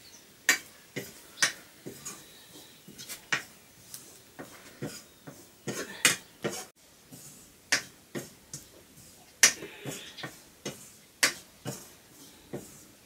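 A metal spoon stirring in a metal frying pan, knocking and scraping against it in sharp irregular clicks, about one or two a second, the loudest about nine seconds in.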